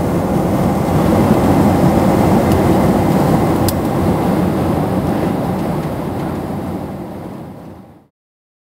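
Steady rumble and rush of a Boeing 767-300's cabin at high altitude: jet engine and airflow noise heard from a window seat. It fades out about eight seconds in.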